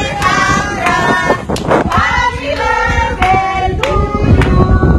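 Several voices singing and shouting loudly over one another, with sharp claps now and then.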